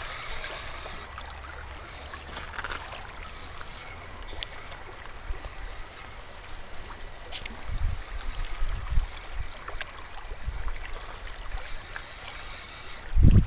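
Small waves lapping and trickling among shoreline rocks, a steady watery hiss. Low rumbles of wind on the microphone come and go, strongest around the middle and just before the end.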